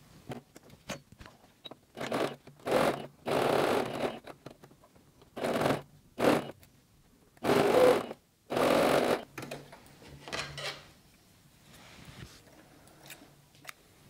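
Domestic electric sewing machine stitching a seam through layered cotton in short runs, stopping and starting about seven times, the first of them the backstitch that locks the start of the seam. Near the end there are only faint ticks.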